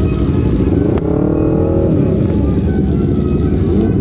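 Several motorcycle engines running at idle together, a dense steady rumble. About a second in, one engine revs up and back down briefly.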